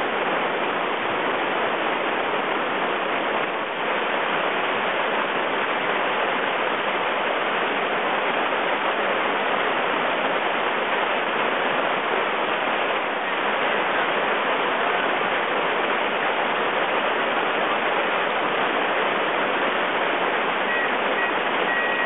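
River whitewater rapids: a steady, unbroken rush of water pouring over rocks.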